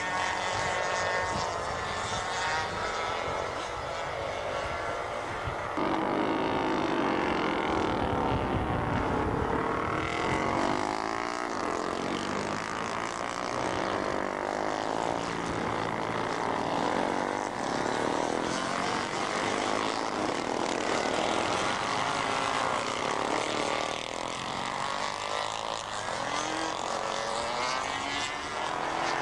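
Racing motorcycle engines running hard and passing by, their pitch rising and falling. The sound changes abruptly about six seconds in.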